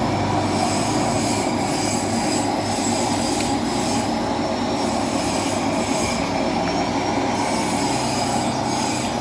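CD6240A engine lathe running, its spindle and gearbox turning with a steady mechanical hum and a faint high whine over it. The running sound is smooth, a sign of a machine in good working order.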